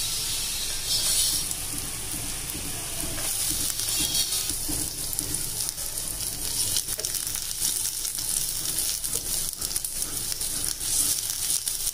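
Chopped garlic and green chillies sizzling in hot oil in a nonstick frying pan, with a steady hiss and many small crackling spatters.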